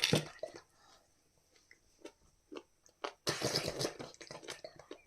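Close-up chewing and biting into grilled chicken sekuwa: irregular crunches and mouth clicks, densest from about three to four and a half seconds in.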